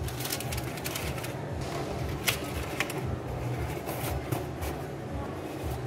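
A sheet of white paper rustling and crinkling as gloved hands handle it and lay it over a cardboard tray, with a couple of sharper snaps midway.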